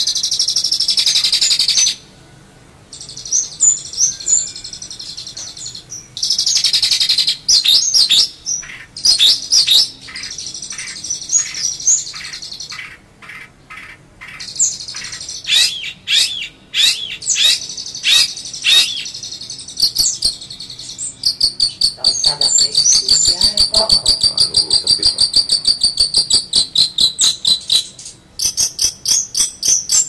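Long-tailed shrike (cendet) singing a loud, varied song of high-pitched trills and chattering phrases, broken by short pauses. It ends in a long fast run of repeated notes.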